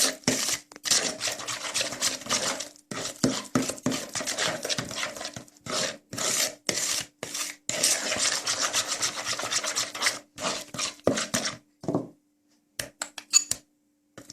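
Margarine, powdered sugar and egg yolk being creamed by hand in a bowl: a utensil scraping and rubbing against the bowl in quick, irregular strokes. The strokes stop near the end, followed by a few light clicks.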